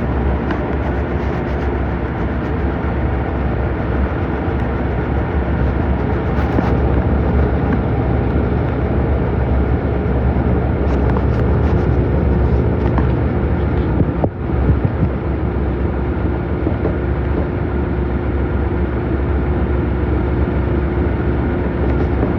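Samsung washing machine running with a loud, steady low rumble and a constant hum, shaking abnormally, with a brief drop in level partway through.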